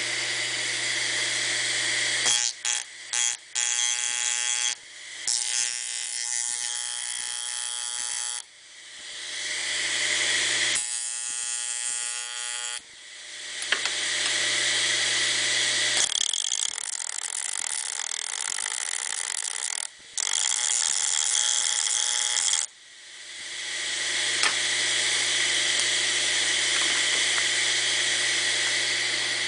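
Hard disk drive motor spinning a sandpaper-covered platter as a small grinder, running with a steady hum, whine and hiss. It cuts out several times, and after the breaks about 8, 13 and 23 seconds in it builds back up as the platter spins up again.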